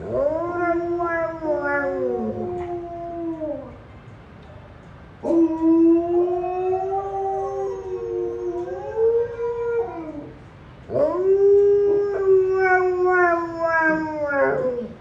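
Alaskan Malamute howling: three long, wavering howls that bend up and down in pitch, separated by short pauses.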